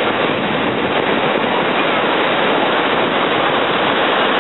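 Ocean surf breaking and washing around waders in the shallows: a loud, steady rush.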